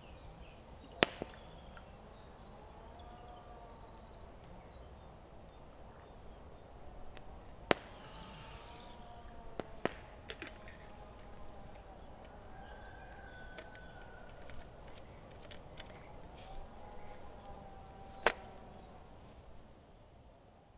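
Swedish torch burning: a steady low rush of fire with a few sharp, loud pops from the wood, fading out near the end.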